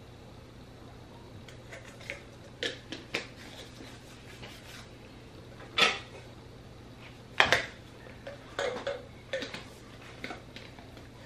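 Plastic children's sippy cups and lids clacking and knocking together as they are picked up and handled on a kitchen counter: a scattering of separate light knocks, the loudest about six seconds and seven and a half seconds in.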